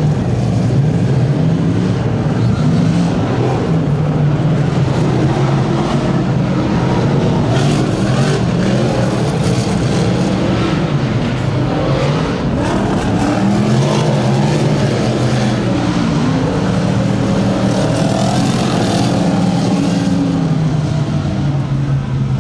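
Big-block DIRTcar modified race cars running on the track, a loud steady engine din with pitch rising and falling as cars pass.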